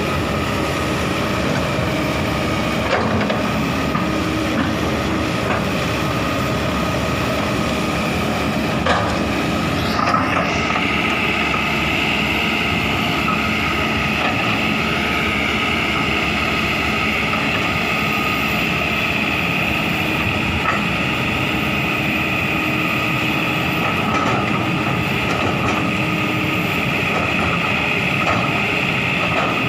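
Hydraulic excavator's diesel engine running steadily. A higher steady whine joins it about ten seconds in and carries on.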